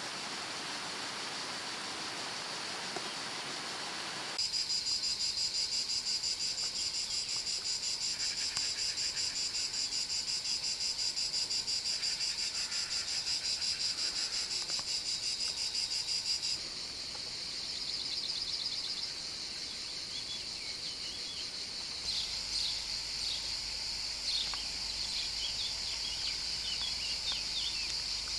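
Insects shrilling in a loud, fast, evenly pulsing chorus, typical of a summer field. A plain steady hiss comes before it, and the chorus starts about four seconds in. It drops in level about two-thirds of the way through, and short chirps sound over it near the end.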